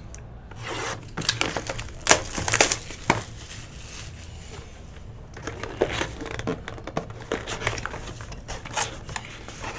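Shrink-wrap plastic crinkling and rustling as a sealed trading-card hobby box is slit open and unwrapped, with scattered clicks and taps from handling the box and card.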